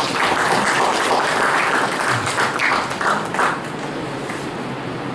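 Audience applauding in a hall, dying away after about three and a half seconds with a few last claps.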